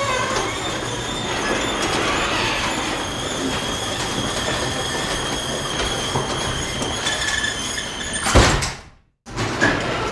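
Garage door rolling closed along its track: a steady rumble with a faint high whine. About eight seconds in it ends in a loud thump as the door shuts. After a brief silence the rolling rumble starts again.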